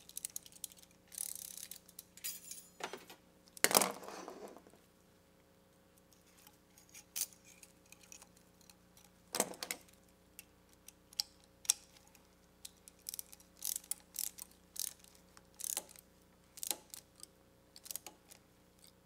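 Ratchet wrench clicking in short, irregular strokes as it winds a band-clamp tensioning tool, tightening the steel clamp on a CV axle's rubber boot. A louder metal clank and rattle about four seconds in.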